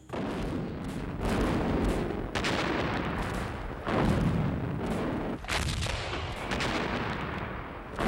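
Battle sounds of artillery and gunfire: a series of heavy blasts about every one to one and a half seconds over a continuous rumble.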